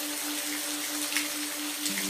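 Steady rain hiss with a few sharper individual drops, over a soft sustained music note; a lower note joins in near the end.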